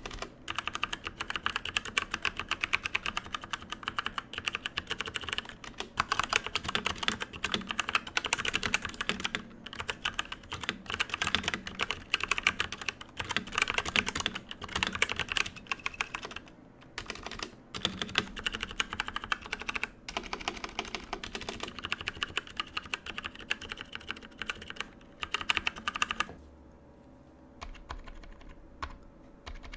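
Fast typing on a Redragon K550 Yama mechanical keyboard: a dense, continuous run of key clicks with a few brief pauses. It stops near the end, leaving only a few faint taps.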